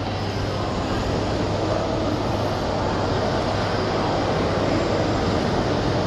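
Steady ambient noise of a busy indoor shopping-mall atrium: a continuous wash of background activity with a low, even hum underneath.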